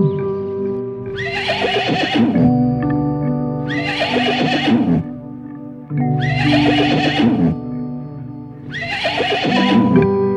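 Horse whinnying four times, the same call repeated about every two and a half seconds, over background music with held notes.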